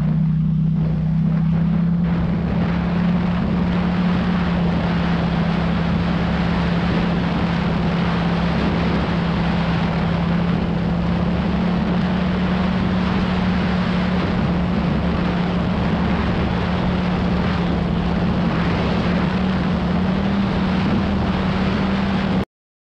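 ATV engine running at a steady pitch while riding, with wind noise on the microphone; the pitch climbs slightly near the end, then the sound cuts off abruptly.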